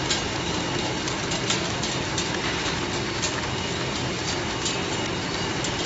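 Chewing-gum packaging machine running, wrapping the gum two pieces at a time: a steady mechanical hum with a faint high whine and irregular clicks.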